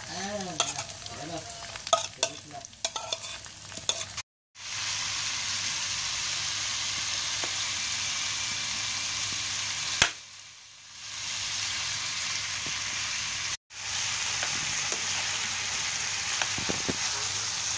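Baguio beans and carrot strips sizzling in hot oil in a frying pan, with clicks and clatter of the vegetables and the spatula against the pan over the first few seconds, then a steady sizzle. The sizzle breaks off abruptly twice.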